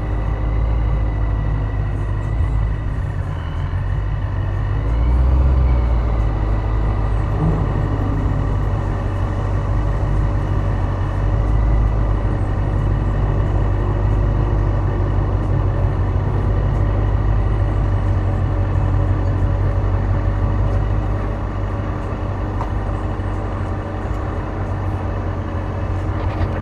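Dodge Charger SRT8's Hemi V8 engine running while the car cruises, with a deep steady rumble. Its pitch dips and rises a few times in the first several seconds, then holds steady.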